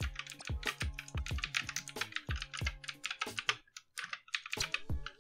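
Rapid keystrokes on a computer keyboard, several clicks a second, over soft background music that drops out briefly about three and a half seconds in.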